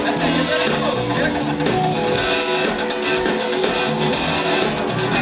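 Live rock band playing upbeat music, with strummed guitars over a steady beat.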